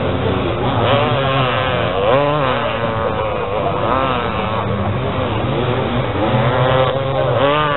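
Several vintage enduro motorcycle engines revving hard under load as they climb a steep sand hill. Their overlapping pitches keep rising and falling.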